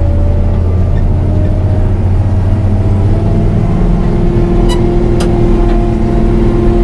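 New Holland TR70 combine's gasoline V8 running under load as the machine pulls away in third gear, with a faint tone rising slowly in pitch as it gathers speed. About three seconds in the note changes, and two short clicks come near the five-second mark.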